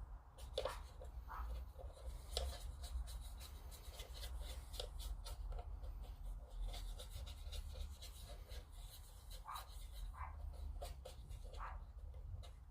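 Small handling noises of scale-model work: light scratching and rubbing with many quick little clicks and ticks scattered throughout.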